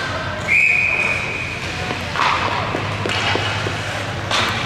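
Referee's whistle: one steady, high blast lasting about a second and a half, starting about half a second in, followed by a few light knocks and clatters on the ice.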